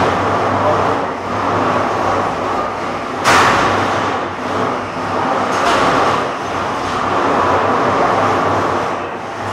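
Featherweight combat robots' motors running with a steady mechanical whir, and one loud hit about three seconds in.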